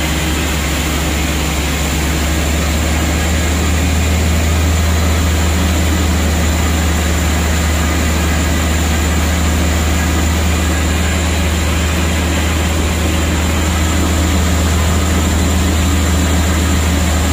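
Large truck's engine running with a steady low drone as it drives through floodwater, with the rush and splash of water thrown up by its tyres.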